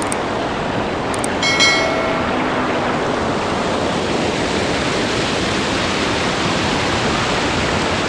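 Steady rush of a small waterfall cascading over rocks into a pool. About one and a half seconds in, a brief sound with a few clear tones rises above the rush.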